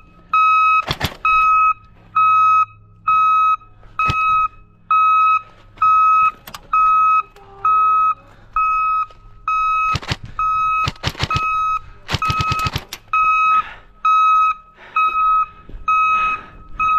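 Airsoft bomb prop beeping steadily after being planted: one high, steady tone about once a second, each beep about half a second long, the sign that the bomb is armed and counting down. Sharp cracks of airsoft shots cut in several times, with quick bursts in the second half.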